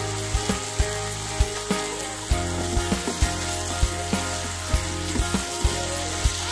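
Raw chicken pieces sizzling as they fry in yellow spice paste in a nonstick frying pan, with a spatula stirring and knocking against the pan at irregular intervals.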